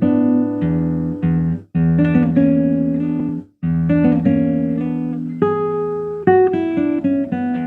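Solo acoustic guitar played fingerstyle: plucked melody notes over ringing bass and chords, breaking off twice for a moment, about one and a half and three and a half seconds in.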